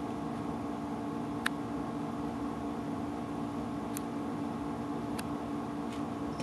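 Steady low mechanical hum of room noise, with a few faint clicks: about a second and a half in, at four seconds and a little after five seconds.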